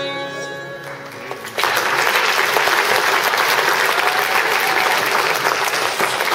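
The last notes of the dance music fade out, and about a second and a half in, an audience breaks into loud applause that carries on steadily.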